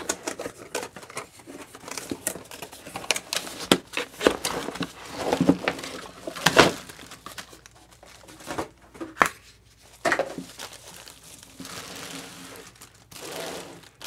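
Cardboard box being opened by hand and its packing handled: bubble wrap and plastic bags crinkling and rustling, with irregular sharp taps and clicks.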